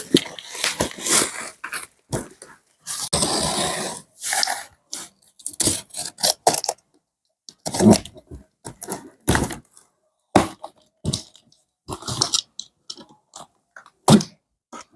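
Parcel packaging being handled and opened: plastic and cardboard crinkling, scraping and tearing in short, irregular bursts, with one longer stretch of rustling about three seconds in.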